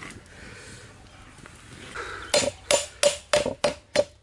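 A quick run of sharp knocks, about three a second, starting about two seconds in, each with a brief ringing tone, like hard strikes in kitchen work.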